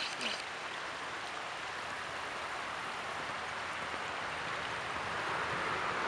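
Steady rush of flowing creek water, growing a little louder toward the end.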